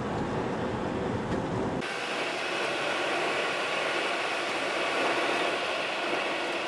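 Steady road and engine noise of a car being driven. About two seconds in, the sound changes abruptly: the low rumble drops away and a steady hiss remains.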